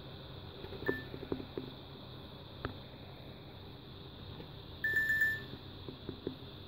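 Nokia 7610 Supernova mobile phone sounding its alarm-clock alert: a short high beep about a second in, then a quick run of four beeps about five seconds in, with fainter short low notes in between.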